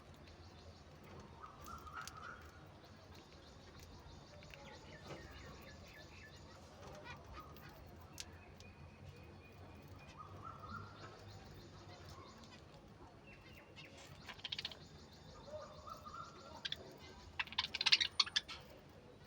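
Budgerigars chirping and chattering softly, with a louder flurry of quick sharp chirps near the end.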